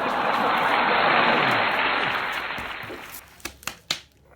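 Applause swelling and then dying away, ending with a few scattered single claps.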